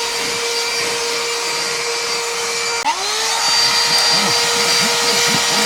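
Small cordless handheld vacuum cleaner running with a steady motor whine. A click comes almost three seconds in, the whine dips, then climbs back up to speed.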